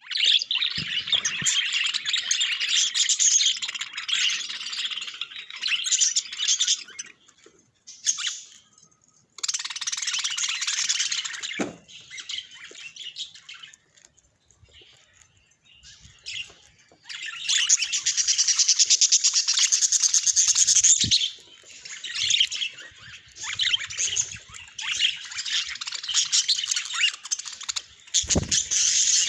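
Budgerigar warbling and chattering in long, fast, busy stretches broken by short pauses, with a few soft low thumps.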